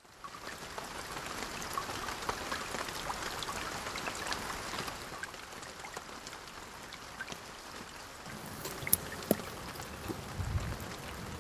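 Steady rain falling, an even hiss dotted with many small drop ticks. A few sharper ticks come near the end, along with a brief low rumble.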